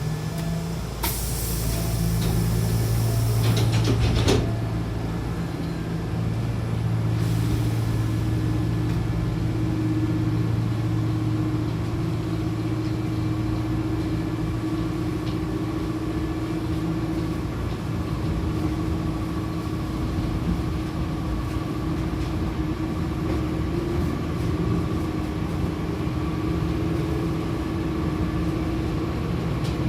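Hankyu commuter train's pneumatic doors hissing as they slide shut, closing with a knock about four seconds in, then a second shorter hiss of air. The train's steady motor hum and running noise follow as it pulls away.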